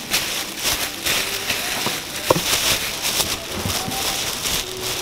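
Clear plastic bag crinkling and rustling right against the microphone, a dense, uneven crackle of small clicks.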